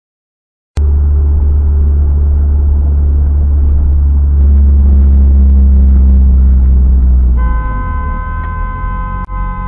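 Heavy low rumble of a car's engine and road noise inside the cabin, cutting in suddenly about a second in and growing louder around four seconds in. About seven seconds in, a car horn starts and is held steady as a car cuts across the lanes ahead.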